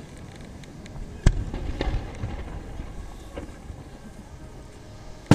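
Fireworks display: a sharp bang about a second in, a few smaller cracks and pops after it, and another sharp bang at the very end over a low rumble.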